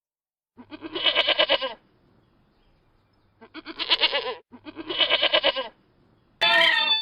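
Domestic goat bleating three times, each bleat a wavering call about a second long. A different call starts near the end.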